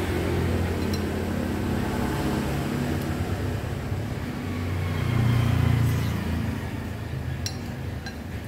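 Road traffic going by: a vehicle engine's hum that swells loudest about five to six seconds in, then fades. A couple of short sharp clicks near the end.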